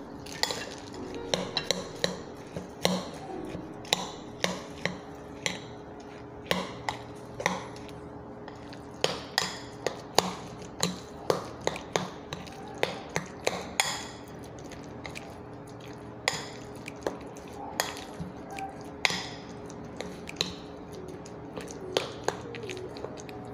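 A metal spoon stirring and folding a thick, sticky mashed-banana and peanut-butter mixture in a ceramic bowl, the spoon clinking against the bowl again and again at an irregular pace, over a faint steady hum.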